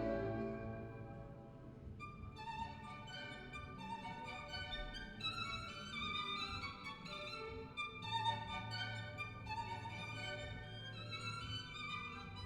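Recorded violin music played back over the totaldac high-end hi-fi system and heard in the room. About two seconds in, a violin line with vibrato comes in over a low sustained bass.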